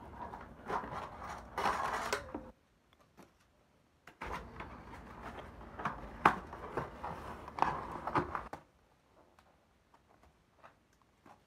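Rustling and clicking of cardboard and plastic toy packaging being handled, in two stretches of a few seconds with a quiet gap between them.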